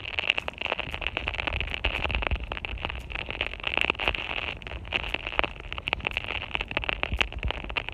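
Heavy rain, with drops crackling and tapping irregularly and densely right on the phone's microphone over a steady hiss.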